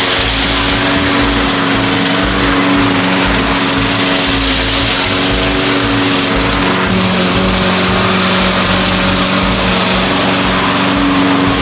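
Lawn mower engine running steadily and loud.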